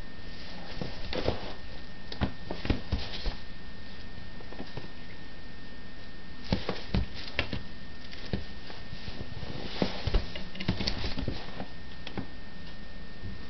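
A cat's paws and claws scuffing and tapping on a surface in three short bouts of quick soft taps.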